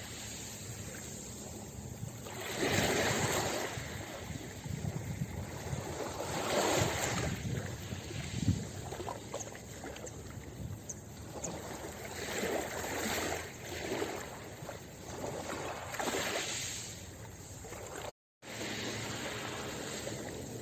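Small waves lapping onto a pebble beach, each swell washing in and drawing back every few seconds. The sound cuts out briefly near the end.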